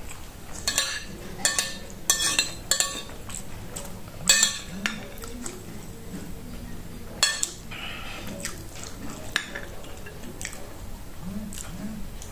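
Metal spoon clinking and scraping against a ceramic plate as rice is scooped up: a run of sharp clinks in the first five seconds and another about seven seconds in. Quieter chewing sounds fill the gaps.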